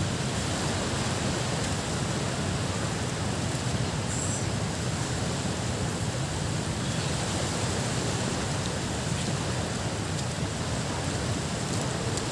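Steady rushing beach ambience of wind on the microphone and water, even in loudness, with no distinct events.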